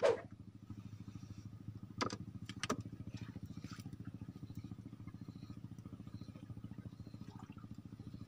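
A small engine running steadily with a fast, low putter, starting just after the beginning. A few sharp knocks sound over it, one at the start and two about two seconds in.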